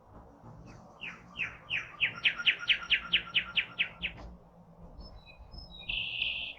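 Songbird singing a rapid run of about fourteen downslurred chirps that speed up and grow louder, then stop abruptly. A few faint high notes and a harsh buzzy call follow near the end.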